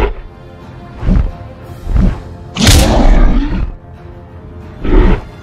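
Background music with a run of loud creature sound effects over it: two short low hits, then a longer roar-like growl about halfway through, and another short one near the end.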